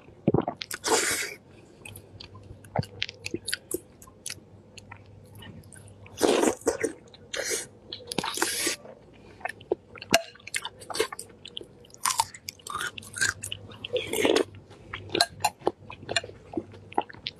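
A person eating soft meatballs in chili oil close to the microphone: wet chewing with many small lip smacks and clicks, broken by a few loud slurps off a spoon, about a second in, several between six and nine seconds, and one near the end.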